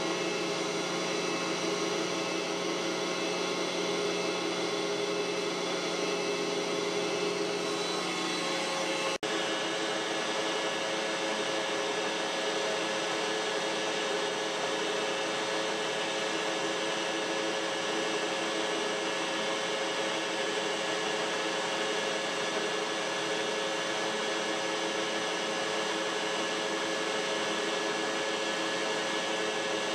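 Metal lathe running steadily under power while single-point threading a C-clamp screw blank at 8 threads per inch: a constant machine hum and whine with several steady tones. A short break about nine seconds in, after which the running sound carries on.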